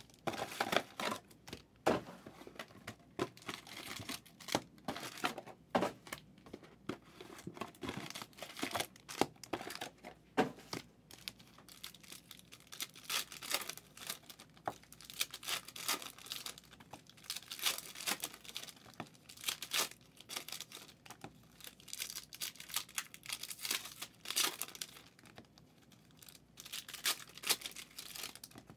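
Trading-card pack wrappers crinkling and being torn open, in quick irregular crackles, as packs of 2023 Panini Contenders football cards are opened and handled.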